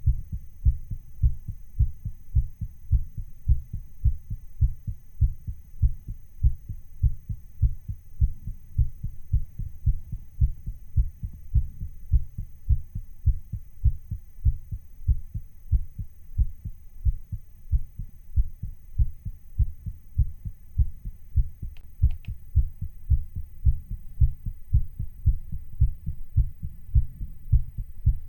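A human heartbeat, recorded and sped up a little, beating fast and evenly as a steady run of deep thumps.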